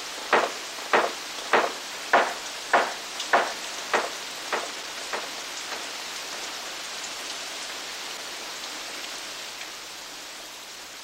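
A squeaking wheel, one short squeak about every 0.6 seconds, as it turns once per revolution. The squeaks grow fainter and stop about five seconds in, over a steady hiss.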